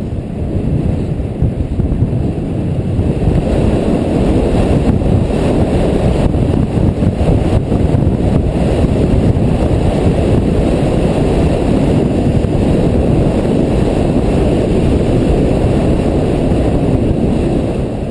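Steady, loud wind buffeting the camera microphone during a fast descent of a ski run.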